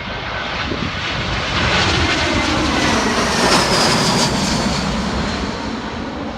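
Jet airliner on landing approach passing low overhead: its engine noise swells to a peak about halfway through, with a high whine sliding down in pitch, then fades.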